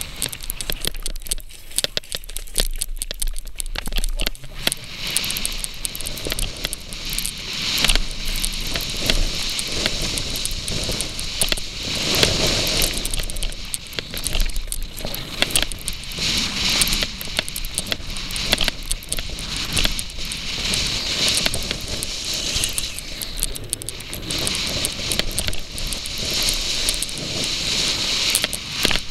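Mountain bike tyres rolling fast over a dirt and gravel trail, with the crunch of loose stones and a constant clatter of rattles and clicks from the bike as it runs over the rough ground.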